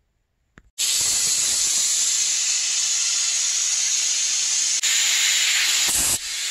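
Compressed air and condensate blasting out of the open drain valve at the bottom of a Quincy QP-5 80-gallon air compressor tank: a loud, steady hiss that starts suddenly about a second in. The tank is being drained and depressurised, its gauge pressure falling.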